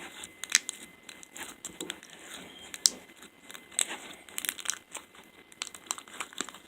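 Slime and its plastic container being handled, making irregular crackles and sharp clicks.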